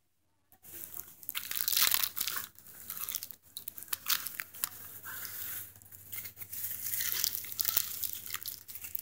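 Plastic bread-bag packaging crinkling and rustling close to the microphone as it is handled, with many sharp crackles, starting about half a second in.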